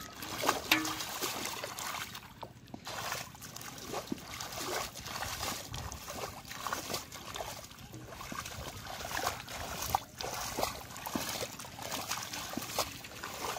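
Hands and bare feet working through wet mud and shallow water, with irregular squelching, sloshing and small splashes as the mud is groped and scooped.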